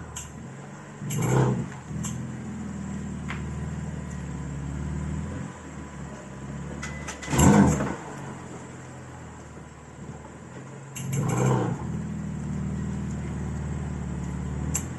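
BMW M4 Competition's twin-turbo straight-six running with a steady hum, broken by three loud surges of noise lasting about half a second each, with a few sharp clicks between them. The clicks fit the clicking from the rear right of the car that is under investigation.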